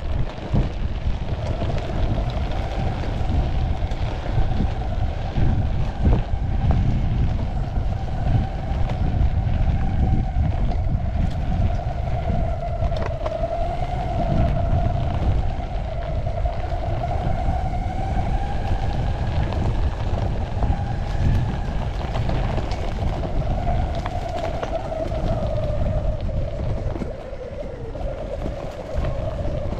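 Electric skateboard drive whining steadily, the pitch wavering up and down with speed, over the low rumble of wheels rolling on a rough dirt track and wind on the microphone.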